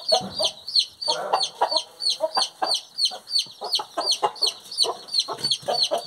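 Newly hatched chicks peeping, a steady quick run of high, falling peeps about four or five a second, with a broody hen clucking in irregular strokes underneath.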